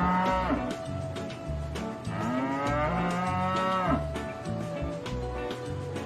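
Cattle mooing: one call ends just after the start, then a long drawn-out moo rises and falls from about two to four seconds in.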